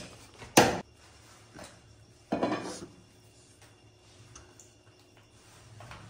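A large curved knife chopping raw chicken on a wooden chopping stump: one sharp, loud chop about half a second in, a duller knock around two and a half seconds, then a few faint taps.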